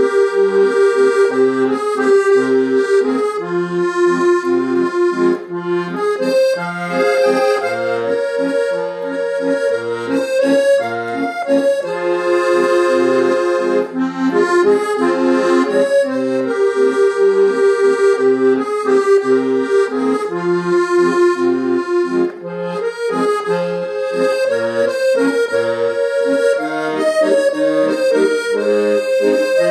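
Accordion playing a song tune with chords and a bouncing bass line, steady throughout.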